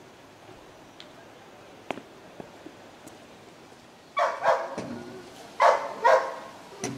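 A dog barks about four times, the barks starting about four seconds in.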